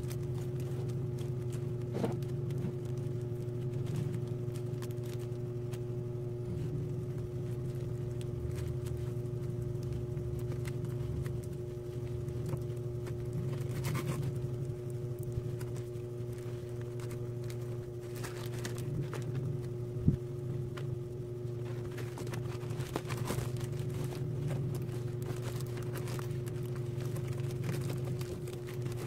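Woven plastic rice sack rustling and crinkling as it is handled, with a nylon rope being threaded through its hem, giving scattered clicks and taps, the sharpest one a little past the middle. A steady low hum runs underneath.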